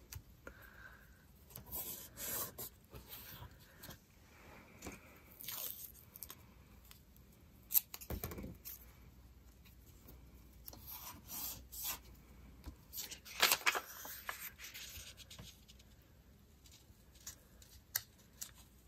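Quiet paper-craft handling: low-tack tape torn and pressed down by hand onto copy paper and cardstock, with the paper rustling and sliding. Irregular short rustles and rubs with a few sharp clicks, a sharper click about eight seconds in and a busier stretch of rustling a few seconds later.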